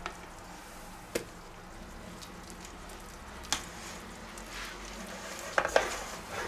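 Silicone spatula scraping a soft cheese mixture out of a stainless-steel bowl and smearing it over a tortilla, with a few short sharp knocks of the spatula against the metal.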